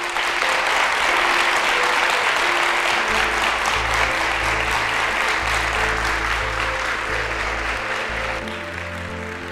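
Audience applauding over background music of steady sustained notes; a low bass line joins the music about three seconds in, and the applause eases off near the end.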